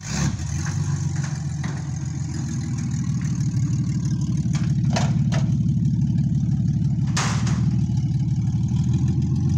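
Demolition derby car's engine running steadily while the car is driven down steel ramps off a trailer. A few short knocks sound about halfway through, with a louder, noisier one near three-quarters of the way in.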